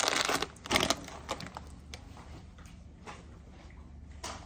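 Plastic snack bag crinkling as it is folded shut, then a sharp knock just under a second in, followed by a few faint taps and clicks over a low steady room hum.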